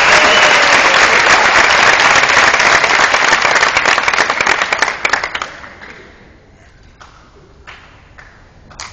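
Audience applauding, the clapping dying away about halfway through, followed by a few scattered claps.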